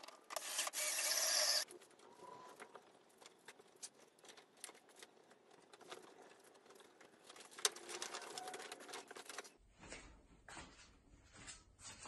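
Wooden boards being handled and fitted together on wooden dowels, with scattered light clicks and taps of wood on wood and a run of regular knocks near the end. It opens with a loud burst of steady noise that lasts about a second and a half and cuts off sharply.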